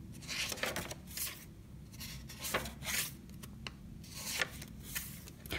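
Sketchbook pages being turned by hand: paper rustling and sliding in a series of short swishes, with a few light clicks.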